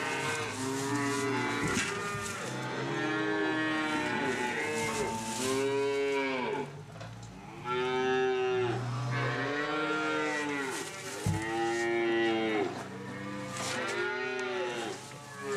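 Several Holstein calves bawling again and again, their calls overlapping at different pitches. A single sharp knock comes about eleven seconds in.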